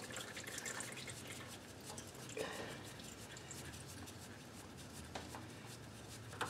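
Faint rubbing and a few soft clicks as a gloved hand unscrews a spin-on oil filter from a Kohler lawn tractor engine, turning it along its long thread.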